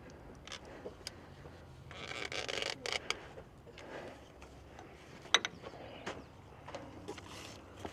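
Light clicks, knocks and rubbing of hand work around the engine as the oil filter is being removed, with one sharp click about five seconds in.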